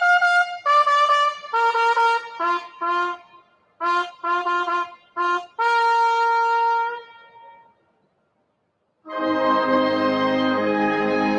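Ceremonial brass fanfare: short, separate notes that end on a long held note about seven seconds in. After a second of silence, fuller sustained instrumental music with low notes begins near the end.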